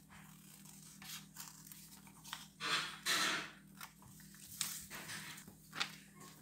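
Scissors snipping through a sheet of sulfite (office) paper, with the paper rustling as it is turned and handled; the loudest cutting and rustling comes about three seconds in. A faint steady hum runs underneath.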